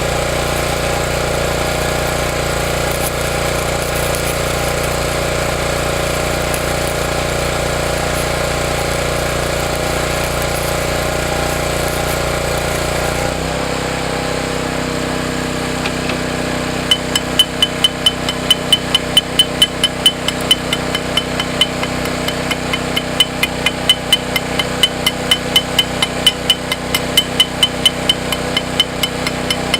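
A steady machine hum that changes pitch and drops about halfway through. Then comes a run of rapid, even hammer strikes on metal, about three a second, each with a bright ring.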